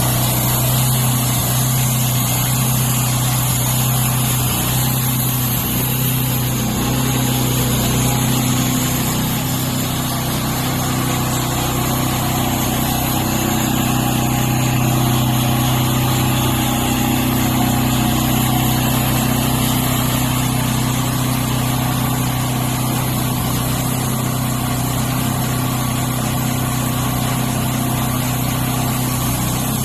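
A homemade sawmill's engine running steadily at an even speed, without a break.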